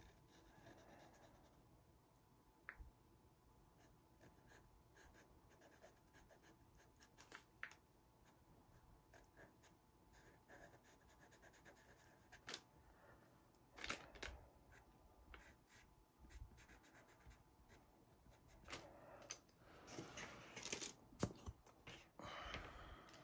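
Faint scratching of a pastel pencil drawing short strokes on PastelMat pastel paper, with small ticks and taps. The strokes come more often in the last few seconds.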